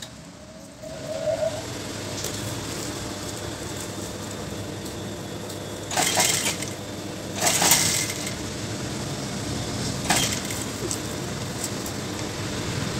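JACK industrial sewing machine running steadily, stitching a binding strip along a blouse armhole; it starts about a second in. Three short louder bursts of noise stand out partway through.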